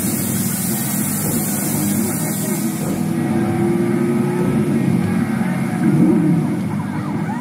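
EMT Lightning McQueen coin-operated kiddie ride running, its speaker playing car engine sound effects over a steady hum.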